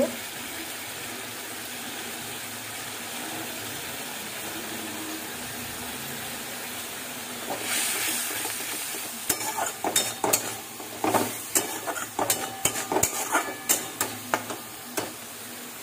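Onions frying in hot oil in a metal wok, sizzling steadily. About seven and a half seconds in the sizzle grows louder as the turmeric and spice paste go into the oil, and then a metal spatula scrapes and knocks against the wok again and again as the masala is stirred.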